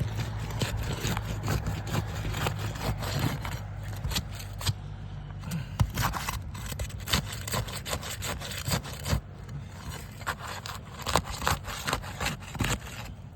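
Irregular scraping, rubbing and sharp knocks as asphalt roof shingles are worked loose to be lifted and replaced. A steady low hum underneath stops about five seconds in.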